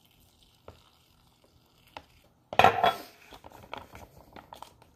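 A ReadyWise freeze-dried meal pouch being handled as the boiling water goes in: faint at first with a few small clicks, then a sudden loud rustle and clatter about halfway through, followed by light clicking and crinkling.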